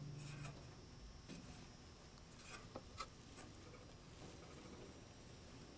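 Near silence with faint small metal clicks and scraping from a 1/8-inch Allen wrench turning loose set screws tight on a conveyor's shaft adapter sprocket.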